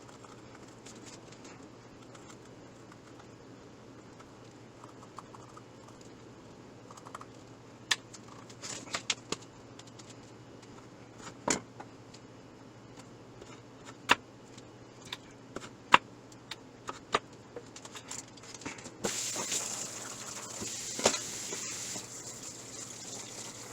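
Kitchen work sounds: scattered sharp clicks and knocks of utensils and dishes being handled. About three-quarters of the way through, a steady hiss starts and runs on.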